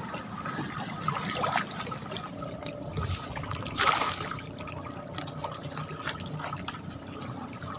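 Shallow lake water sloshing and splashing around a person wading, with several short splashes; the loudest comes about four seconds in.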